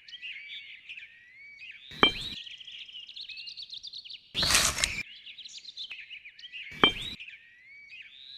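Small birds chirping and twittering without a break. About halfway through comes a loud half-second rush of noise, and there is a sharp click twice.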